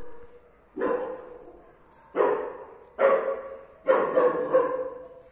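German Shepherd dog barking: single barks about a second apart, then a quick run of three near the end.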